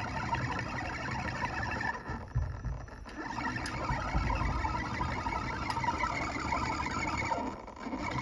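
Shaper Origin handheld CNC router's spindle running with a spiral end mill milling a trochoidal toolpath: a steady whine over cutting noise that eases off briefly twice, about two seconds in and near the end.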